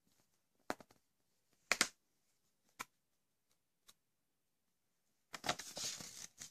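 A few light taps of small hands on the paper pages of a picture book, then a page turning over with a papery rustle near the end.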